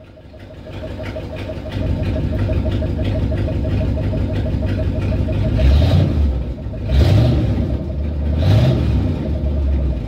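A 360 (5.9-litre) V8 running, revved up briefly about three times in the second half, after a vacuum leak at the PCV valve has been fixed. It is idling way better.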